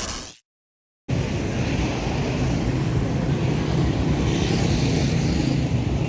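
Steady city street traffic noise, a constant low rumble of vehicles. It cuts out to silence about a third of a second in and comes back abruptly just after a second in.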